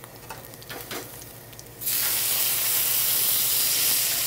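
Wet fettuccine dropped from the pasta water into a hot stainless steel sauté pan of rendered bacon fat and garlic: a loud sizzle starts suddenly about two seconds in and then holds steady. Before it, a few light clicks of utensils.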